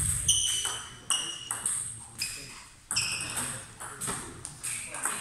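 Table tennis balls striking bats and tables during a rally: a quick, irregular series of sharp clicks, each with a short high ping.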